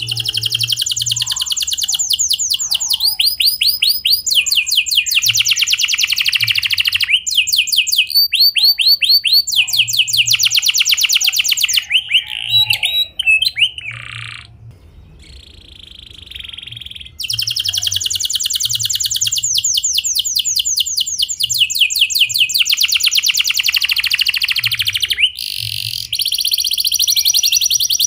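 Domestic canary singing a long rolling song: fast trills of rapidly repeated high notes, in several long phrases with brief pauses between them and a quieter stretch near the middle.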